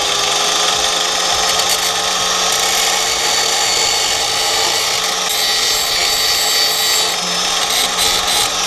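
Electric angle grinder running at full speed with a steady whine, its disc grinding the paint off a car's sheet-steel transmission tunnel down to bare metal.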